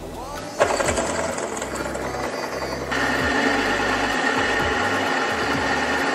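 Drill press running with a twist drill bit cutting into a metal block. The cutting noise starts suddenly about half a second in. Near three seconds in it settles into a louder, steady whine.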